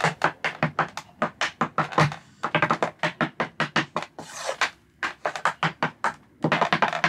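Tap dancing on a wooden floor in 26-year-old Capezio tap shoes: a quick, uneven run of sharp metal taps, several a second, with a short scraping slide about four seconds in. The toe taps are the shoes' original metal plates, worn thin, and the heel taps have been ground flat.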